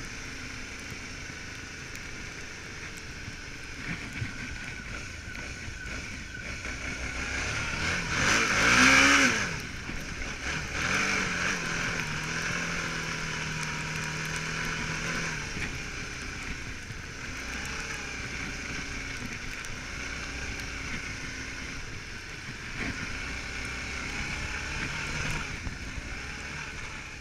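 Suzuki V-Strom 650's 645 cc V-twin engine running on the move, with a loud rise in revs about nine seconds in that drops away sharply, then a steady pull for several seconds before easing off.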